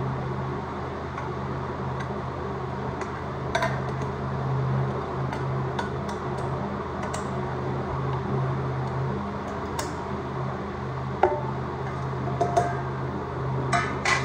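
Stainless steel tiffin containers clinking as the tiers are stacked and clamped together: scattered sharp metal clinks, the loudest about eleven seconds in and a quick cluster near the end. A steady hum runs underneath.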